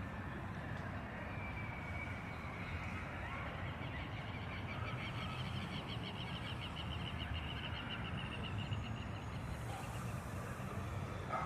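Outdoor natural ambience: birds calling, including a short whistled note about a second in and a fast trill from about four to eight seconds, over a steady low rumble.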